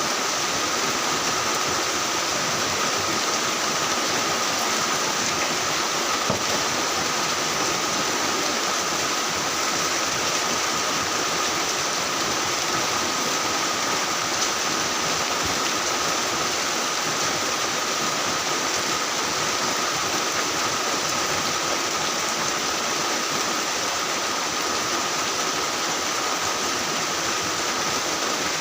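Heavy rain falling steadily, a dense even hiss, with a thin steady high tone running underneath.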